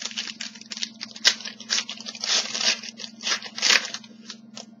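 Trading-card packaging and cards being handled: a quick, irregular run of rustling and crinkling, like a foil pack wrapper being worked and cards being shuffled through, over a steady low electrical hum.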